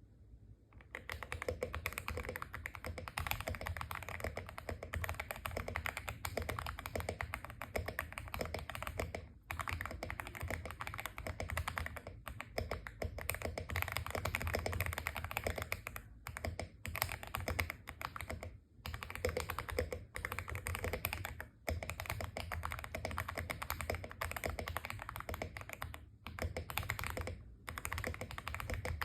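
Stock Aula F75 mechanical keyboard with Ice Vein switches being typed on quickly and steadily: a dense run of keystrokes starting about a second in, broken by a few brief pauses.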